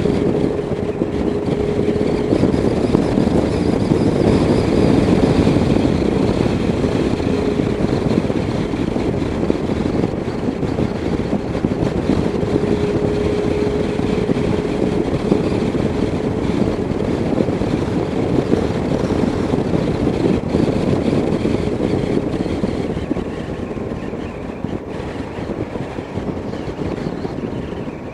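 Wind rushing over a motorcycle rider's helmet-mounted microphone at about 40 mph, with the motorcycle's engine running steadily underneath and a faint steady whine coming and going. The rush eases slightly near the end as the bike slows.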